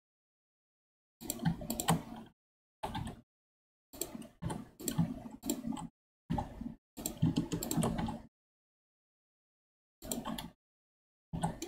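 Computer keyboard and mouse clicking in irregular bursts, each cutting in and out abruptly with dead silence between them.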